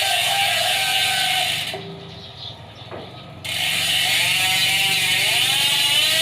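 Sword bicycle rear hub with 6 pawls and 3 teeth freewheeling, its pawls clicking so fast they merge into a loud ratcheting buzz. The hub has 1,600 km on it. About two seconds in the buzz drops away for a second and a half, then picks up again.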